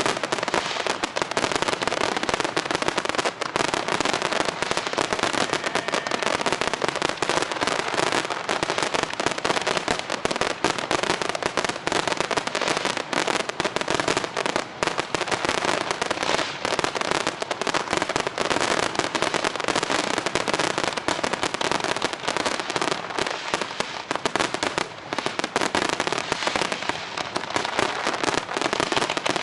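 Aerial fireworks display going off in a dense, continuous barrage of rapid crackles and bangs.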